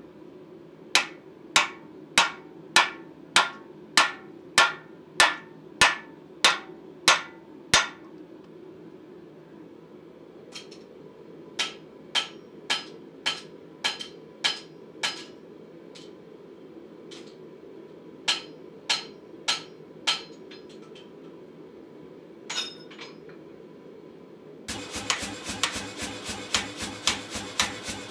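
Hand hammer driving a tapered steel drift through a hole in a red-hot bar on the anvil: bursts of sharp, ringing blows about two a second, with short pauses between bursts as the hole is drifted to size. Near the end, a faster, steady run of lighter strikes begins.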